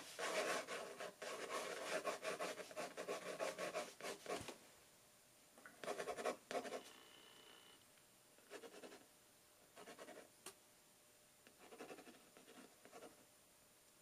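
Fountain pen nib scratching across watercolor paper as a small bird is drawn: a dense run of quick strokes for the first four seconds or so, then short, fainter bursts of strokes with pauses between.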